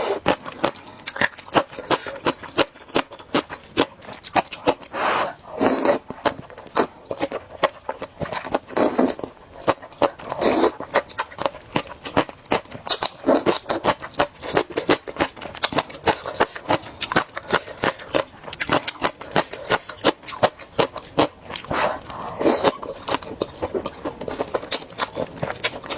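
Close-miked eating: a person slurping thick, sticky rice noodles and chewing, with many wet mouth clicks throughout and a few longer slurps.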